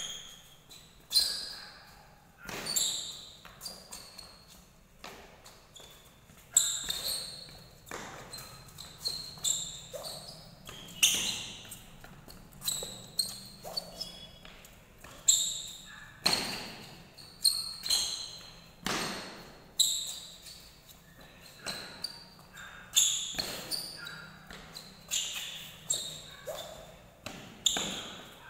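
Court shoes squeaking and thudding on the polished floor of a badminton hall during footwork drills. There are short high squeals and stamps of lunges about every second, with some echo from the hall.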